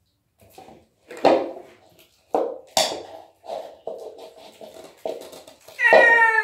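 Hands working sticky slime over a metal mixing bowl: a string of short squelches and light clinks against the bowl. About six seconds in, a loud, high, wavering whining cry starts.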